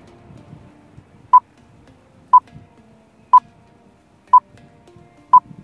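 Quiz countdown timer beeping: five short, identical electronic beeps at the same pitch, one a second, counting down the time left to answer.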